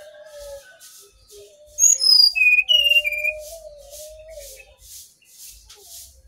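Brown-chested jungle flycatcher singing: softer lower whistles, then a loud burst of clear whistled notes and quick falling glides about two seconds in.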